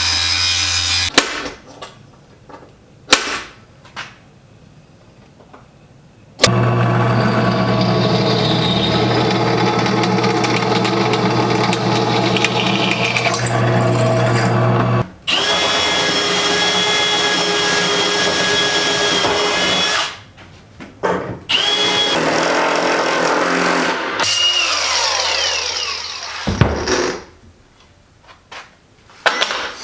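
Power tools running in several long bursts, each a steady noisy whine, separated by abrupt breaks into quieter gaps with a few clicks and knocks. Near the end one tool winds down in pitch.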